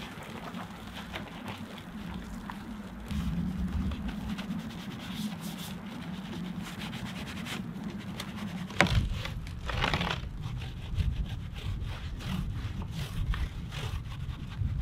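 Microfiber wash mitt and soft detailing brushes scrubbing through wet snow foam on a car's front bumper vents and grille: a steady wet rubbing with small crackles of foam, and a sharp tap a little past halfway.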